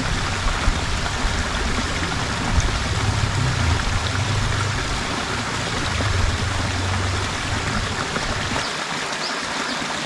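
Water from a small rocky cascade running steadily into a stream pool, with a low rumble underneath that cuts out near the end.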